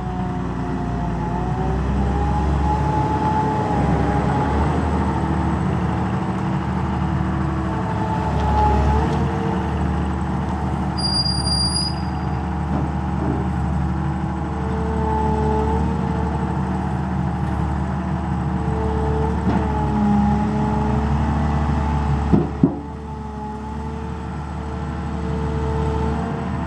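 Caterpillar M318C wheeled excavator's diesel engine running as the machine turns and moves, with a whine that rises and falls in pitch. Two sharp knocks about 22 seconds in, after which the sound drops a little.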